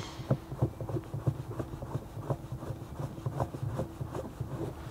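A screw cap being turned by hand onto a fire appliance's foam tank: a run of small clicks and scrapes from the threads, about three a second.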